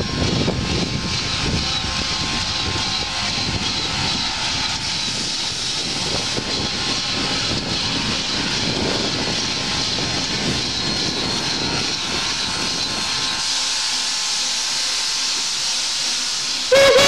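Two saddle-tank steam locomotives rolling slowly past close by, with a steady hiss of steam over a low rumble of the running gear. The rumble dies away, and just before the end a loud steam whistle starts to blow.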